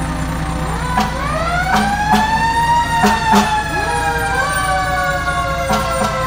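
Fire truck siren winding up from about half a second in, peaking near three seconds and then slowly falling in pitch, with a second, lower whine joining it, over the truck's engine rumble.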